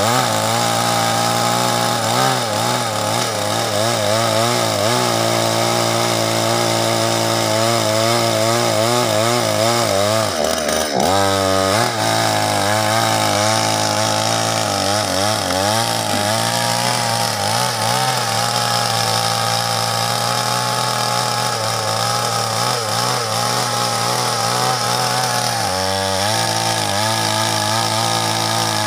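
Chainsaw running at high revs while cutting through a log, its pitch wavering under load. About ten seconds in the engine drops briefly and revs back up, and it dips again near the end.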